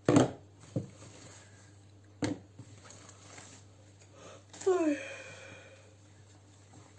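A woman's voiced yawn near the five-second mark, its pitch sliding steeply down and trailing off. It follows a few short handling sounds at the start and about two seconds in, the first the loudest, as items are picked up and moved.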